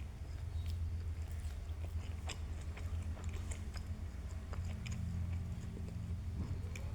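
A cat chewing food, with irregular small wet clicks and crunches, over a steady low hum.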